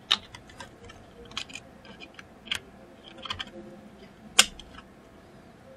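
Light clicks and taps of a laptop motherboard and a plastic LED RAM-slot test card being handled as the card is moved between the SO-DIMM memory slots. There is one sharper, louder click about four and a half seconds in.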